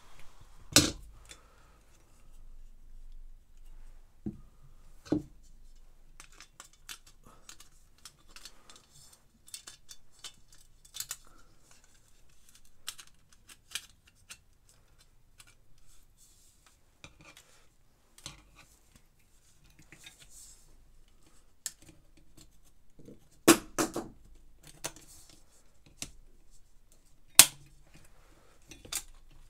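Irregular clicks and clinks as a perforated metal shield is handled and fitted onto an iMac G3's round CRT neck board, with a few louder sharp knocks about a second in and again near the end.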